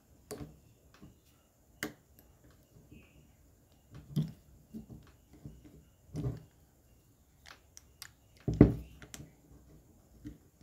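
Scattered clicks and knocks of small metal parts and tools being handled while a brake master cylinder is taken apart, with heavier knocks about four, six and eight and a half seconds in.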